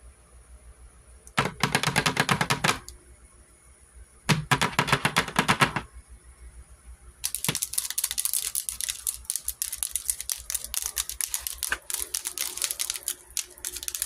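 Long fingernails tapping rapidly on a hard surface, a fast rattle of sharp clicks: two short bursts, then a longer, steadier run of tapping from about seven seconds in.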